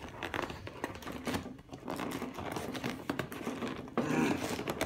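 Hands working at a cardboard shipping box: rapid, irregular scratching and tapping on the cardboard, with a louder scraping rustle starting about four seconds in.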